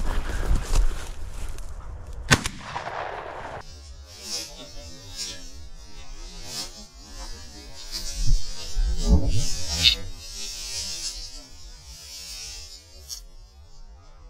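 Footsteps and rustling through tall dry grass, with a sharp click about two seconds in. The rest is scattered knocks and rustles of gun handling as the shotgun is swung up, loudest partway through.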